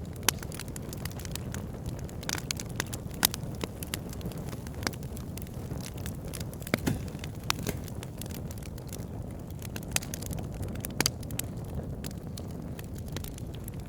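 Campfire crackling: a steady low rumble of burning wood, with frequent irregular sharp pops and snaps.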